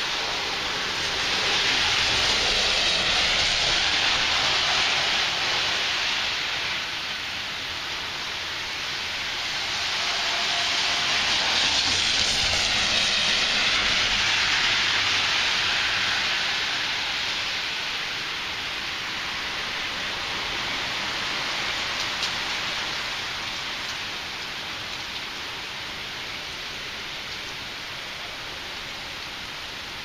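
Heavy rain in a strong windstorm: a dense, steady hiss that swells twice for several seconds at a time and then eases off toward the end.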